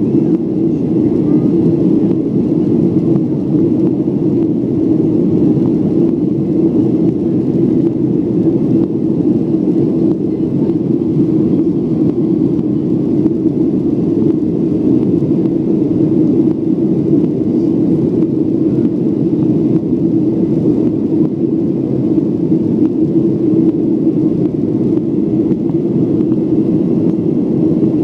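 Airliner cabin noise during the climb after takeoff: the engines and rushing air make a steady, low drone.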